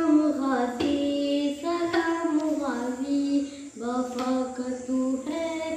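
A boy singing a Shia devotional chant (noha) in praise of Abbas, unaccompanied, in short sung phrases with brief breaks between them.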